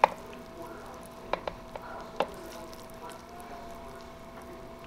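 A serving utensil clanking and scraping against a metal roasting pan as pheasant and stuffing are scooped out: one sharp clank at the start, then a few lighter clicks between about one and a half and two seconds in, over a steady hum.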